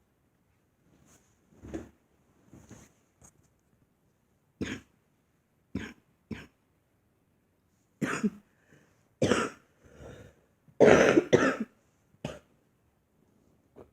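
A girl coughing: a series of short single coughs a second or two apart, with a louder double cough about eleven seconds in.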